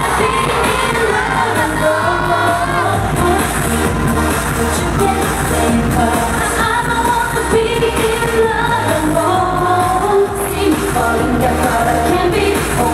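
Live K-pop girl-group performance: female vocals sung into a microphone over a loud pop backing track with a steady beat, heard through the concert sound system.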